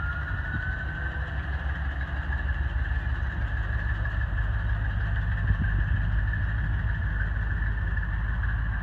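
Slow-moving vehicles in a procession, led by a 1972 Chevrolet C10 pickup rolling past, make a steady low engine rumble. In the first second a thin high tone rises and fades.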